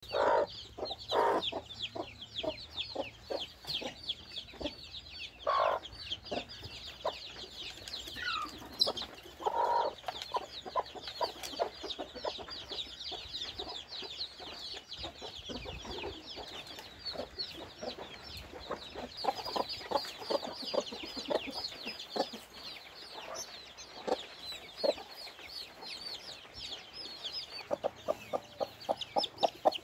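A brood of young chicks peeping continuously in high, short, falling chirps while a hen clucks among them. There are a few louder clucks in the first seconds and again around the middle, and a quick run of evenly spaced clucks near the end.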